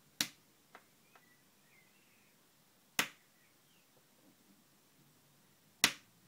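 Three sharp clicks about three seconds apart, with two fainter ticks just after the first.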